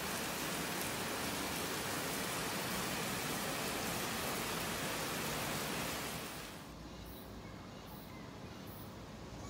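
Steady rain falling, an even hiss. About six and a half seconds in it gives way to quieter outdoor ambience with high, pulsing insect calls from cicadas and grass insects, repeating under a second apart.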